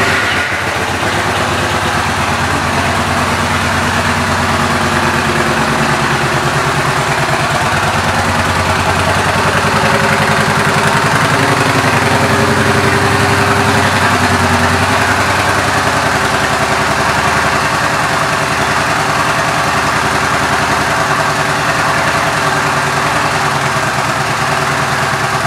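2014 Yamaha Bolt R-Spec's air-cooled 942 cc V-twin motorcycle engine idling steadily.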